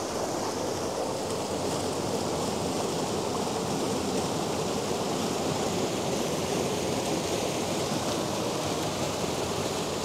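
Shallow mountain stream running over stones: a steady rush of water.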